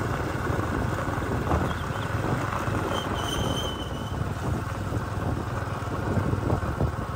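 Steady rumble of a vehicle travelling along a dirt road, with wind buffeting the microphone. A brief high whistling tone sounds about three seconds in.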